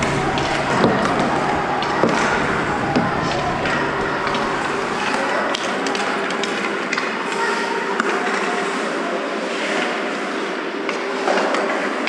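Ice hockey practice in an indoor rink: skate blades scraping on the ice and scattered sharp clicks of sticks and pucks, over a steady hum.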